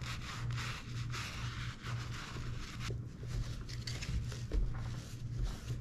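Dauber brush scrubbing saddle-soap lather into the boot's leather toe and welt in repeated short rasping strokes.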